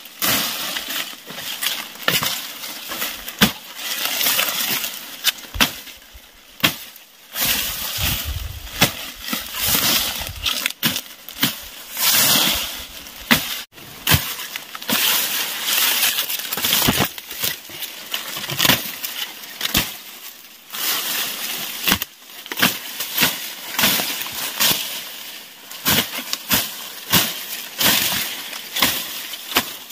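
Tall, dry grass stalks being hacked and slashed at the base with a long-bladed hand tool: irregular cutting strokes, a few a second, mixed with the crackle and rustle of the stems.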